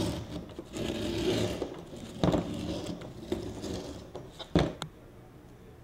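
Utility knife blade scraping and cutting through a vinyl sticker on a tabletop, with two sharp knocks, about two and four and a half seconds in.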